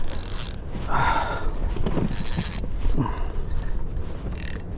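Spinning reel being cranked against a hooked fish, under a steady low rumble of wind on the microphone, with three short bursts of hiss about two seconds apart.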